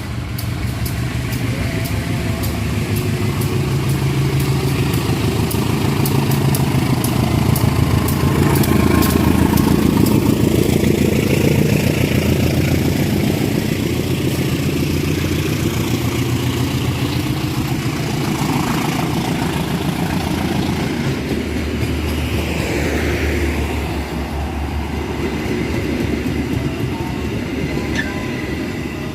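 A train passing close by, its wheels clattering over the rails in a steady rumble that builds to its loudest about nine seconds in, then eases.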